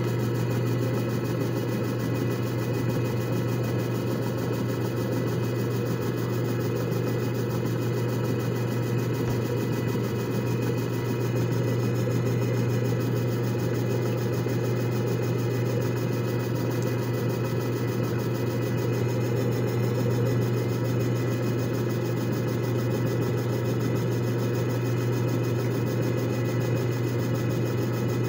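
JFJ Easy Pro disc repair machine running a repair cycle on its two-minute setting: a steady motor hum with a whirring rush as the disc spins.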